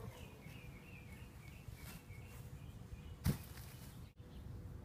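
Quiet outdoor ambience with small birds chirping, and one sharp thump about three seconds in.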